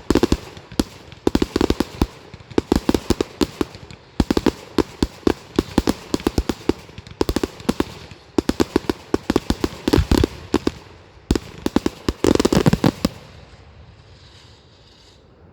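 Fireworks display: rapid volleys of sharp bangs and crackles in dense clusters, stopping suddenly about thirteen seconds in and leaving only a faint crackle.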